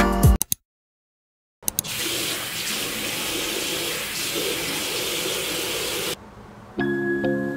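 Bathroom basin tap running water steadily into the sink while a cloth is rinsed under the stream; the water starts about a second and a half in and stops suddenly about six seconds in. Background music begins near the end.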